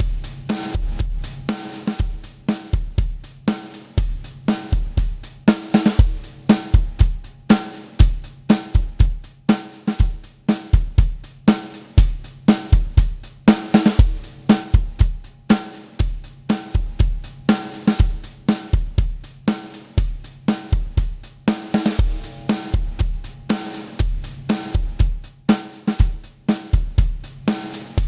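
Recorded drum kit groove played through the Supercharger compressor plugin as a demonstration: kick, snare, hi-hat and cymbals in a steady repeating beat.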